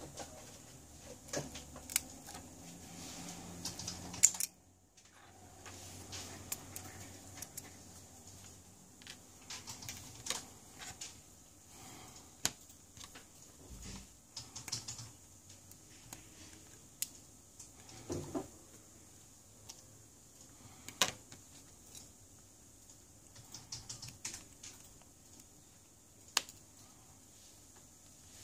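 Irregular small clicks and taps of tweezers and a metal blade tool working on a phone's exposed circuit board, connectors and frame, with a few sharper clicks.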